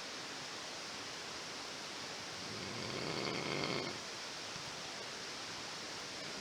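Snoring: a single drawn-out snore starts about two and a half seconds in and lasts over a second, over a steady hiss.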